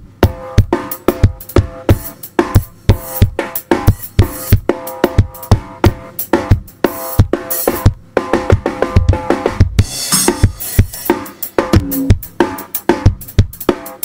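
Acoustic drum kit played in a busy groove: bass drum, snare and tom hits several times a second, with cymbals crashing about ten seconds in.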